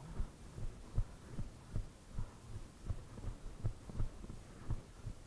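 A ridden horse's hoofbeats on turf, heard from the saddle: a steady rhythm of low thuds, nearly three a second, as the horse canters.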